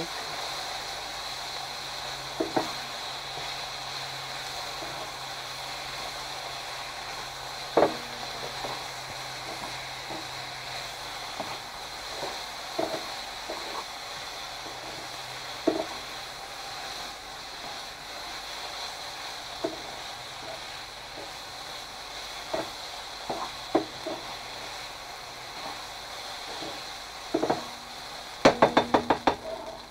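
Noodle and vegetable stir fry in chow mein sauce sizzling steadily in a JML Copper Stone frying pan, with occasional clicks of tongs against the pan as the food is turned. About a second before the end comes a quick run of clicks.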